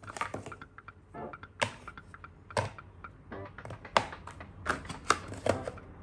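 Cardboard boxes and plastic tubes being put into a plastic basket: irregular knocks, taps and clatter, the loudest about four seconds in.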